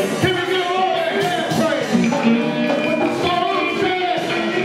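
Live church music with guitar, a voice rising and falling over it.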